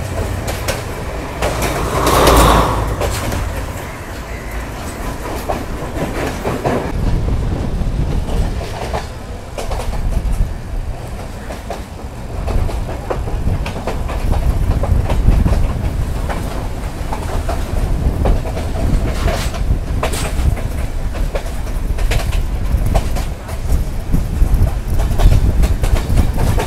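Sri Lankan Railways passenger train running at speed, heard from an open doorway: wheels clacking over the rail joints over a heavy low rumble. About two seconds in there is a louder rushing burst, just as a train on the next track passes close alongside.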